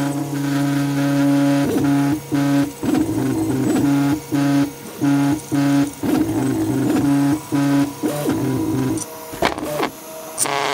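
3D printer's stepper motors whining at steady pitches as the axes move, stopping and starting every half second or so, with the pitch shifting and warbling between moves. Two sharp clicks near the end.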